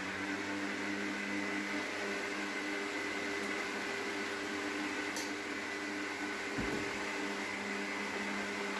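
Electric stand mixer running steadily at one speed, its dough hook turning through flour and olive oil. There is a faint knock about six and a half seconds in.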